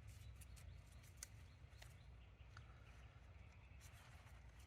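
Near silence with a few faint, scattered small clicks of cotter pins being turned by hand in a motorcycle gearbox's selector plunger housing.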